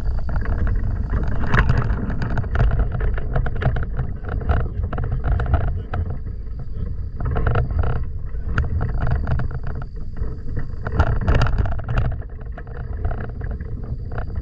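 Wind buffeting the microphone of a glider-mounted camera: uneven low rumble with irregular crackles.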